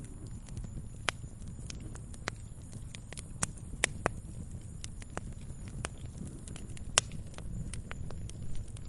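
Wood campfire crackling: irregular sharp pops and snaps over a steady low rumble, with one louder pop about seven seconds in.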